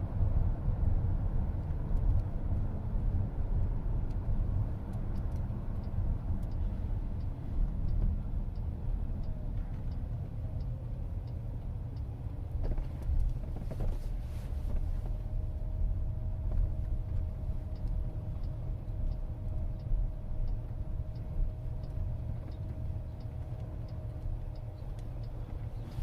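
Steady low road and tyre rumble inside a self-driving car's cabin, with the turn signal ticking about one and a half times a second while the car turns right into a parking lot.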